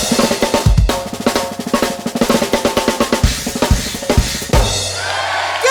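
Drum kit solo: rapid snare hits and rolls over repeated bass drum kicks, closing about four and a half seconds in on a held, ringing final hit.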